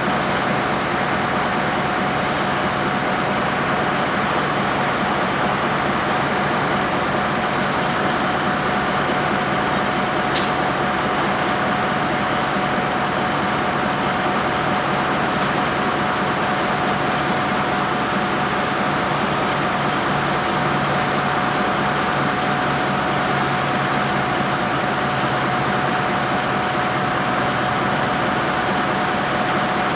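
Heavy wrecker's diesel engine running steadily: a constant drone with a steady whine over it.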